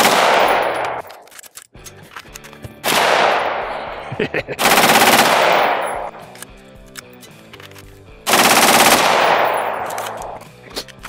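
A full-auto AR-15 rifle fires four short bursts of rapid shots, each about a second long or less. The report echoes and dies away after each burst. The rifle is being run hard in a barrel meltdown test.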